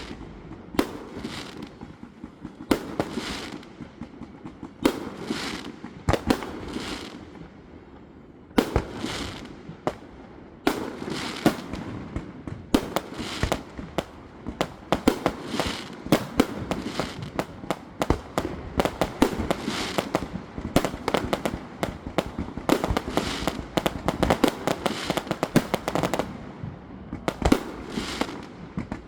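Aerial fireworks display: a rapid run of shell bursts and sharp bangs with crackling between them, getting denser after about ten seconds.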